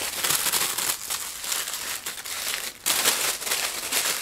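Tissue paper crinkling and rustling as it is unfolded by hand to unwrap a small item, with a short pause about three seconds in.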